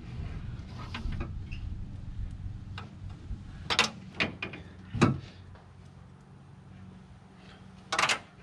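Knocks and clatter of parts being handled while a Land Cruiser's cooling system is put back together around the fan shroud. A low rumble runs for the first few seconds, then come a handful of sharp knocks, the loudest about five seconds in and another near the end.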